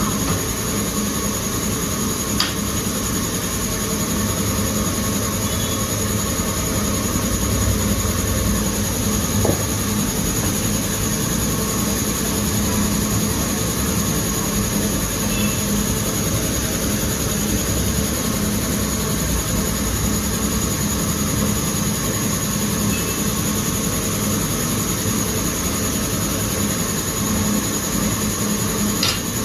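Steady mechanical rumble and hiss, with a few faint knocks.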